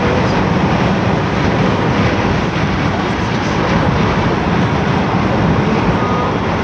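Steady rushing running noise of a car driving at speed, heard from inside its cabin, with a Senboku 7000 series electric train running alongside.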